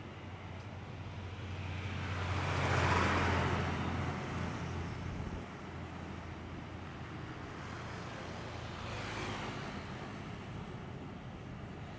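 Road traffic passing close by: a steady low engine hum with tyre and engine noise that swells as a vehicle goes past about three seconds in, and a smaller pass-by near nine seconds.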